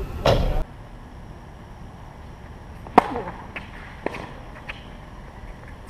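Tennis ball being struck and bouncing on an outdoor hardcourt: one sharp pop about three seconds in, then a few fainter taps about half a second apart. A short louder burst of noise at the very start cuts off abruptly.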